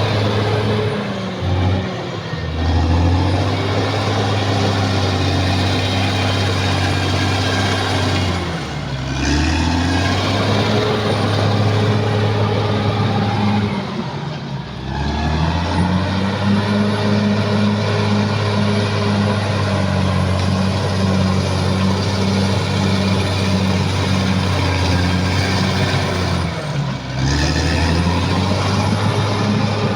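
Caterpillar D6R XL bulldozer's diesel engine running hard and steady, its pitch sagging and then climbing back four times as the load or throttle changes.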